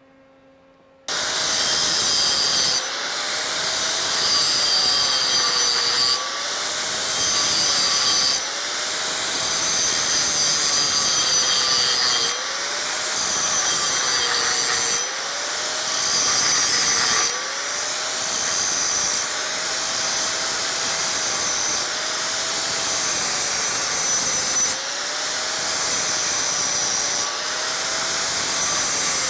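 DeWalt angle grinder starting up about a second in and grinding steel on a pipe weld, grinding out 7018 filler metal back toward the TIG root pass. Its motor whine wavers up and down every couple of seconds as the disc bites in and eases off.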